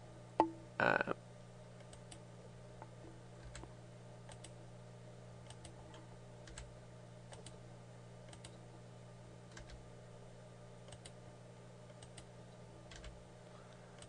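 Faint, scattered clicks of a computer mouse and keyboard over a steady low mains hum, with one louder short noise about a second in.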